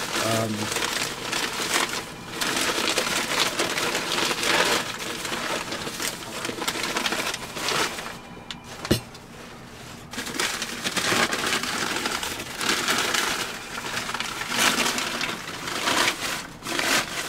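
Crinkling and rustling of white packing paper as it is pulled apart and crumpled to unwrap items, going in irregular spurts, with a single sharp click about nine seconds in.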